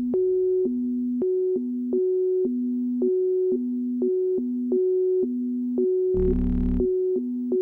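Music: a keyboard plays two notes back and forth in a steady, even rhythm, with a short low thud about six seconds in.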